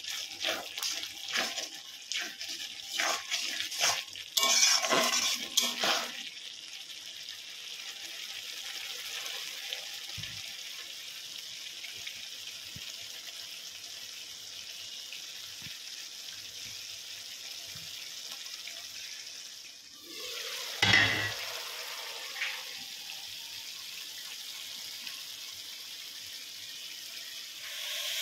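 Mutton frying in a pan for kosha: a spatula knocks and scrapes against the pan through the first six seconds, with a louder burst of sizzle around four to six seconds in. A steady sizzle then runs on, broken by a brief louder clatter and rush about twenty seconds in.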